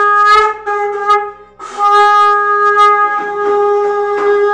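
A conch shell (shankh) blown in long steady blasts. The first note breaks off about half a second in, there is a short sputter, and a second long note starts about a second and a half in.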